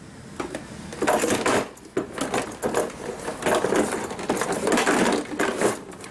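Cardboard product boxes and a coiled plastic air hose being packed into a plastic rolling tool box: irregular rustling, scraping and light knocks of box against plastic.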